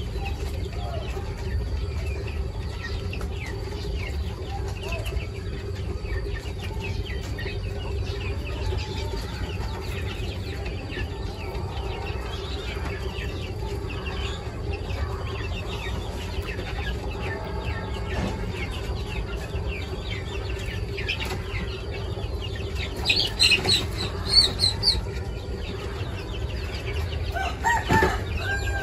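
Flock of quail with soft, high chirps and small scratching sounds throughout, over a steady low hum. A louder run of high-pitched bird calls comes a little past two-thirds through, and another call near the end.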